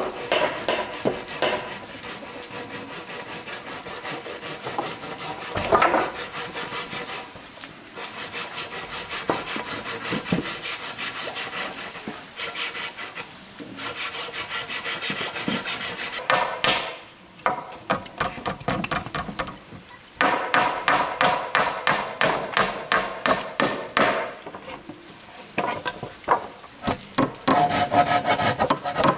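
A hand tool rubbing across wood in rapid, repeated strokes, stopping briefly a few times.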